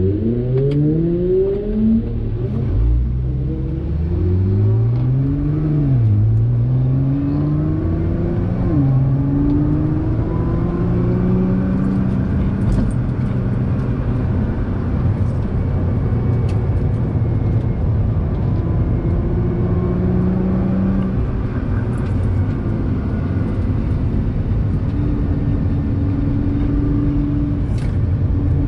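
Nissan GT-R R35's twin-turbo V6 heard from inside the cabin while driven hard. Its revs climb and drop with gear changes over the first several seconds, then hold at steadier pitches, over constant road and tyre noise.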